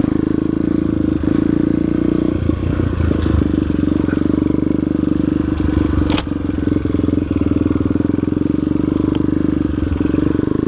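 A single-cylinder four-stroke trail bike engine running as it is ridden over rough ground, the throttle opening and easing off a few times. There is a sharp knock about six seconds in.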